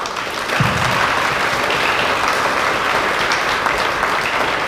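Audience applauding, many people clapping at once, with a brief low thump about half a second in.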